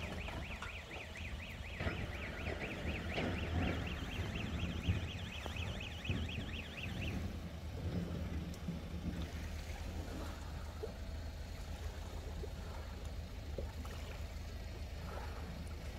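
SUV engine running steadily at low revs while reversing a boat trailer. A fast, high warbling tone sounds over it for the first seven seconds or so.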